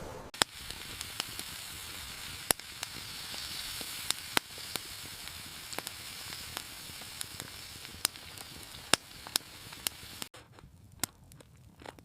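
Fire crackling: a steady hiss with irregular sharp pops. It cuts off abruptly about ten seconds in, leaving only a few faint pops.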